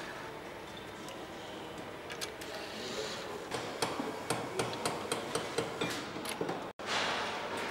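Engine assembly shop background with a run of sharp metallic clicks, about four a second, through the middle. The sound cuts out for an instant near the end.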